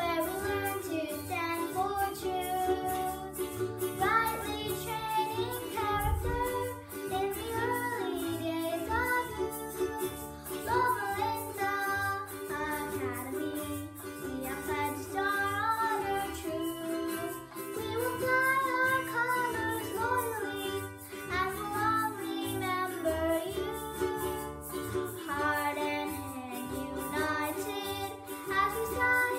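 A young girl singing a school song solo, phrase by phrase, over a steady instrumental accompaniment.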